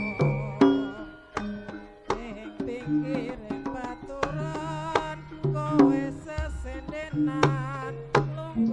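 Live Javanese jaranan ensemble music: quick, sharp hand-drum strokes over sustained, ringing pitched tones, with a wavering high melody line above.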